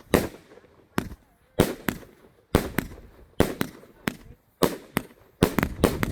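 A 138-shot firework cake firing continuously: a steady string of sharp reports, about two a second, some coming in quick pairs, each with a short echoing tail.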